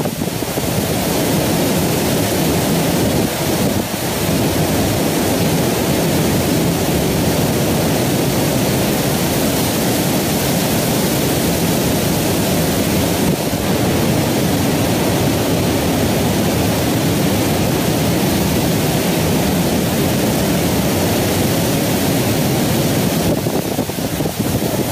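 Steady rushing noise with no distinct events, strongest in the low-to-middle range, like a fan or room hiss on the recording.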